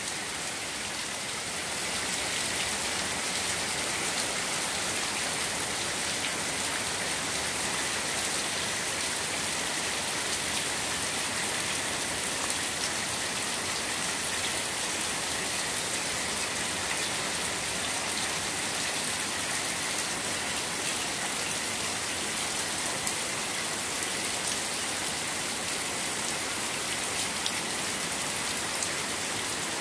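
Heavy rain falling on a flooded paved yard, drops splashing into standing water in a steady hiss.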